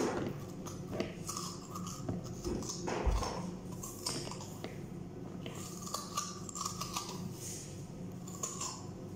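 A raw potato being peeled by hand: short, irregular scraping strokes of the blade on the skin, with a few light knocks.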